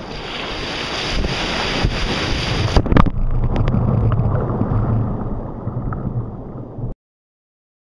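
Wind buffeting the microphone and sea water splashing against a kayak hull as a hooked blacktip shark thrashes alongside. A loud splash hits about three seconds in, after which the sound turns duller with a low hum, and it all cuts off suddenly about a second before the end.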